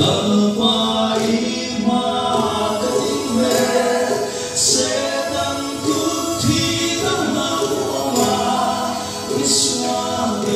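Male vocal group of five singing a gospel song in Mizo in close harmony.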